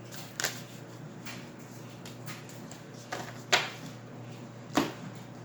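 A tarot deck being shuffled and handled by hand: soft card noise with several short snaps of the cards, three of them sharp and loud, about half a second, three and a half and just under five seconds in.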